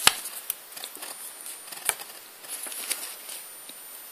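Handling sounds of a compact digital camera being turned over in the hands: a sharp click right at the start, another click about two seconds in, and light tapping and rustling in between.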